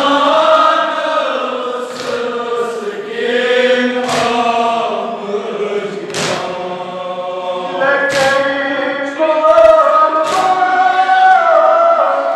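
Men chanting a Kashmiri noha, a Shia mourning lament, many voices together in long, drawn-out lines. Sharp slaps of hands striking chests (matam) fall in time, about every two seconds.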